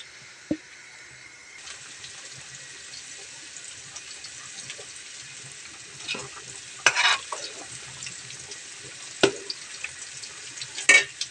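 Curry bubbling at a steady boil in a metal pot, with a metal spoon stirring it and knocking against the pot a few times: once about half a second in, then several knocks in the second half.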